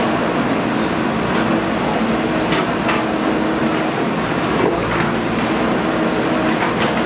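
Heavy diesel construction machine (JCB) engine running steadily under work, with a few short metallic clanks.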